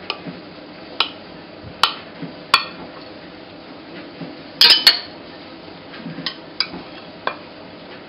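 Metal knife and cake server knocking and clinking against a glass cake stand while a slice of cake is cut and lifted out. The clinks come one at a time, every second or so, with a louder double clink about four and a half seconds in.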